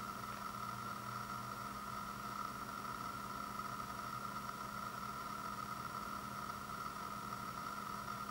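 Steady machine-like hum with a constant high-pitched whine over a hiss, unchanging throughout.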